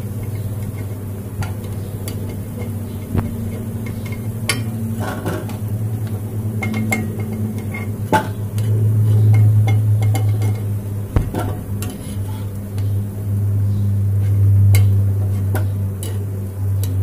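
Semolina jalebis deep-frying in hot oil in a kadai with a faint sizzle, while a metal slotted spoon clinks against the pan now and then as they are lifted out. A steady low hum runs underneath.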